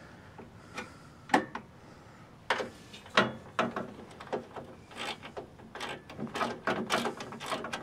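Irregular metallic clicks and scrapes from a hand-held nut driver turning a nylon-insert lock nut onto a tailgate table mounting bolt. The clicks are sparse at first and come faster from about five seconds in.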